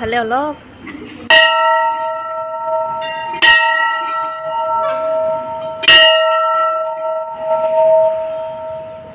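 Hanging brass temple bell rung by hand, struck three times about two seconds apart. Each strike rings on and overlaps the next.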